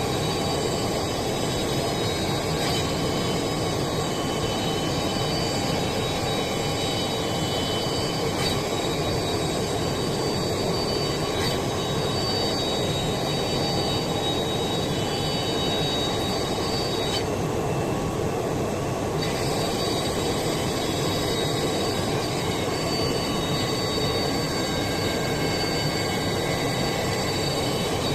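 Woodworking CNC router's high-speed spindles running with a high-pitched whine of several steady tones over a continuous rushing noise. The whine drops out for about two seconds roughly two-thirds through, then returns.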